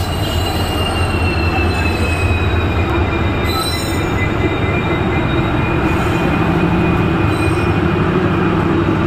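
An Indian passenger train rolls slowly into the platform behind a diesel locomotive. There is a steady low rumble, and over it a thin, high metallic squeal that slowly falls in pitch as the train slows.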